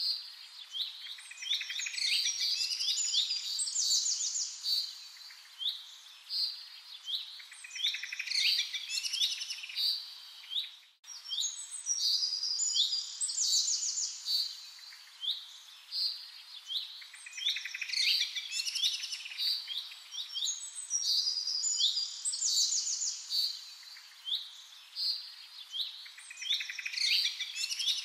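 Birds chirping and trilling, a dense stretch of birdsong that repeats itself about every eleven seconds, with a brief sudden cut-out a little before the middle.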